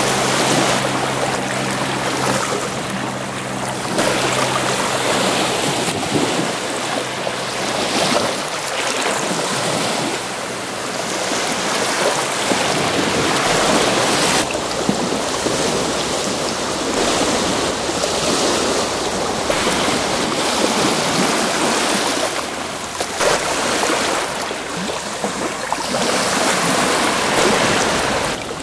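Small Mediterranean waves breaking and washing up the beach, the surf swelling and easing every few seconds.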